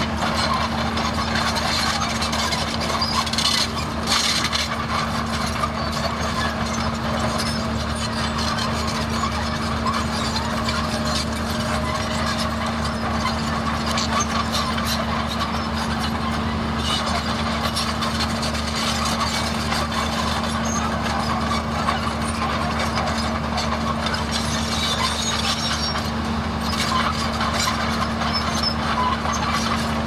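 Komatsu D31A crawler bulldozer's diesel engine running steadily as it pushes soil, a constant low hum with light rattling now and then.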